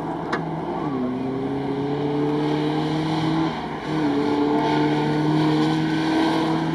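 Off-road 4x4's engine pulling away at the start of a timed run, its pitch climbing, dipping about a second in and again about four seconds in, then climbing again.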